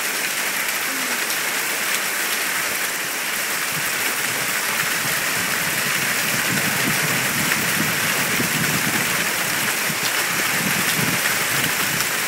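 Hail and rain falling steadily: a dense, even hiss dotted with fine ticks of stones striking.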